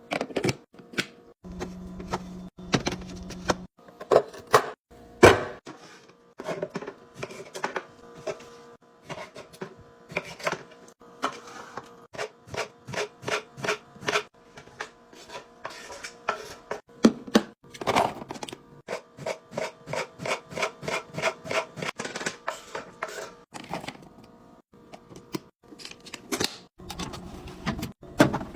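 Clicks, taps and knocks of containers and packaging being handled and set down during fridge restocking, with an even run of quick ticks at about three a second through the middle.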